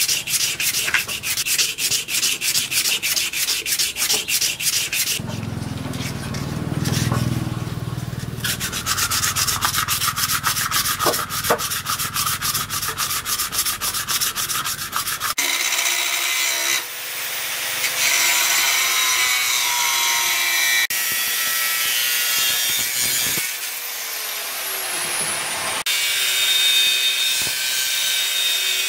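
Sandpaper rubbed by hand over a knife handle in quick back-and-forth strokes. About halfway through, an angle grinder cutting a steel strip takes over: a steady whine with several abrupt breaks.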